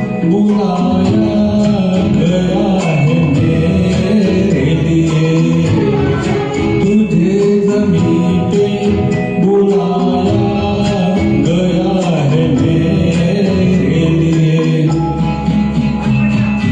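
A singer performing a Hindi film song over a karaoke backing track of strings and accompaniment.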